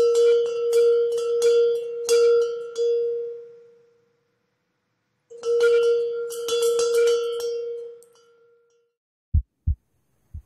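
A metal bell rung in two bouts of quick repeated strikes, each bout ringing on at one steady pitch and fading away. Near the end come three short, low thuds.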